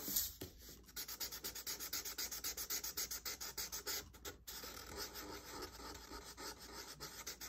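Felt-tip Sharpie marker scratching rapidly back and forth on paper as a drawing is coloured in, in quick, even, faint strokes.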